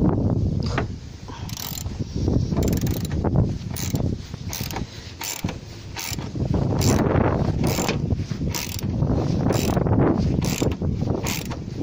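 Socket ratchet on an extension clicking in repeated short bursts, about two a second, as it undoes a bolt on the engine mount.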